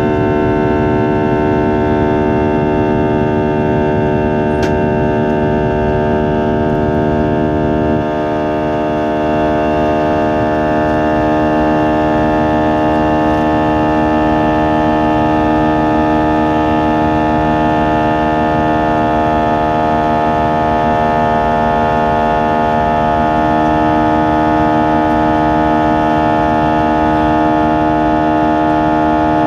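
Airbus A320 engines heard inside the passenger cabin during the climb after takeoff: a loud, steady drone of many held tones over a low rumble, dipping slightly about eight seconds in.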